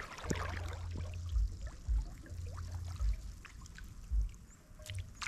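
Water trickling and splashing, with dull low thumps about once a second.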